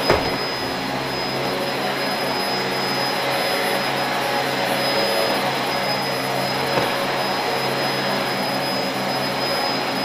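Dyson DC04 upright vacuum cleaner running steadily as it is pushed over carpet, a constant rushing noise with a thin high whine. A sharp knock sounds right at the start, and a lighter one about seven seconds in.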